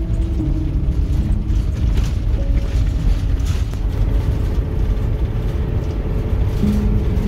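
Background music with a few slow, held notes over the steady low rumble of a motorhome driving.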